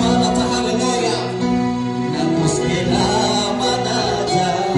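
Gospel song: a man singing through a microphone over instrumental backing with plucked-string sounds.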